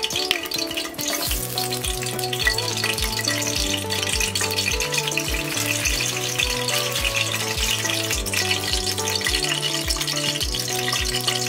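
Background instrumental music with a steady beat over a continuous sizzle of green chillies frying in oil in a pressure cooker.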